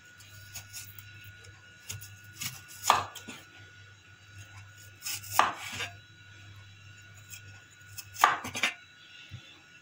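Crinkle-cut knife slicing down through a raw peeled potato and striking a wooden cutting board: three main cuts a little under three seconds apart, with a few lighter taps before them.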